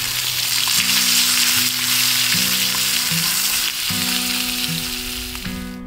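Sausages and bacon sizzling in a frying pan over a campfire, a steady hiss of frying fat that cuts off abruptly near the end.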